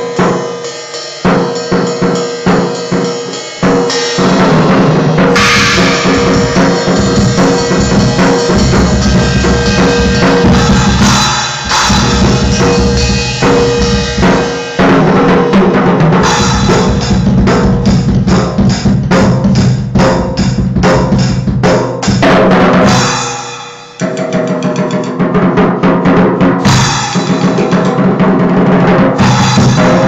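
Acoustic drum kit played with sticks: dense, continuous hits on the drums with crashing cymbals. The playing is sparser at first, then turns loud and busy about four seconds in, with a short break about two-thirds of the way through.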